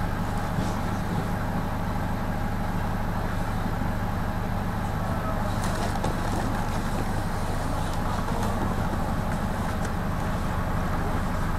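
Minibus engine idling with a steady low hum, heard from inside the passenger cabin while the bus stands still, with a couple of faint clicks.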